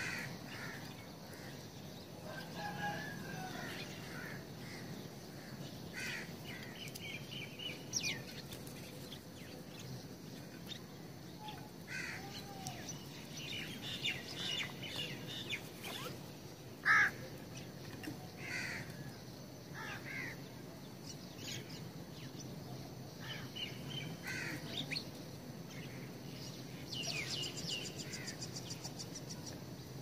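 Birds calling: scattered short chirps and tweets from several birds, with one louder call about 17 seconds in and a quick run of calls near the end.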